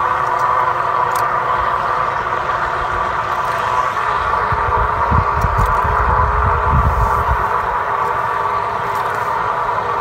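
A steady machine-like hum holding several pitches unchanged, with low wind buffeting on the microphone for a couple of seconds around the middle.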